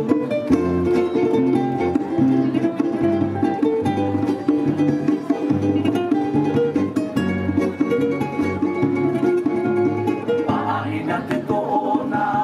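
Music for a Tahitian dance: strummed ukulele over a steady pulsing bass line, with a singing voice coming in near the end.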